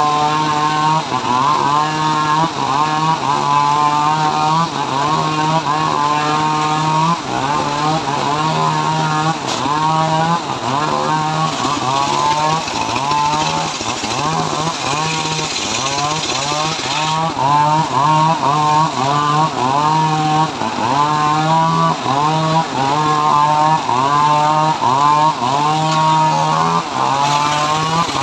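Homemade circular saw bench ripping teak, its motor running steadily while the pitch dips again and again as the blade takes the wood. A stronger hiss of the cut comes in for a few seconds about halfway through.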